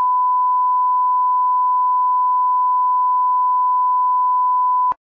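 Steady electronic test tone held at one pitch, with a fainter second tone a little higher, cutting off abruptly near the end. It is the kind of line-up tone laid at the head of a recorded video.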